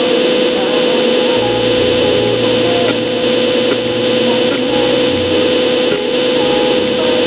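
Simulated CNC milling spindle running at speed: a loud, steady whine held at one pitch.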